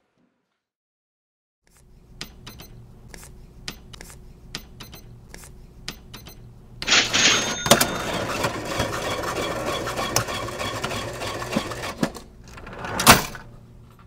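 Mechanical cash register sound effect: a run of separate key clicks, then a louder clatter and ring of the mechanism about seven seconds in, ending with a short loud swell near the end.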